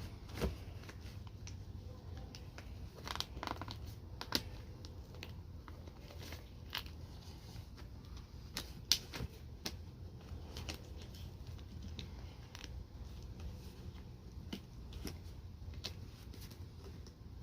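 Packaging being handled while unboxing a lawn mower: irregular clicks, taps and short rustles, the sharpest click about nine seconds in, over a steady low rumble.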